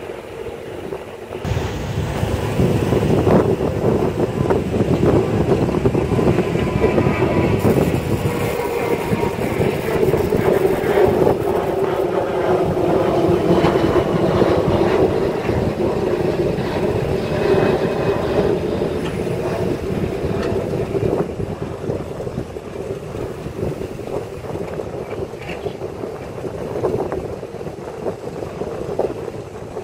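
Sumitomo SH210 hydraulic excavator's diesel engine working under load while it loads soil into a dump truck, with scattered knocks and clunks from the bucket and dirt. The engine gets louder about a second and a half in.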